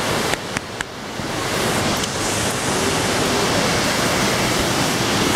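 Steady rushing of a waterfall, growing a little louder after about a second, with a few brief clicks near the start.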